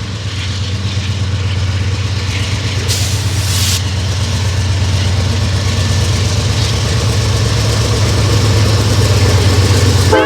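Diesel locomotive engine running steadily close by, a heavy low rumble with an even pulsing beat. A short hiss of air comes about three seconds in.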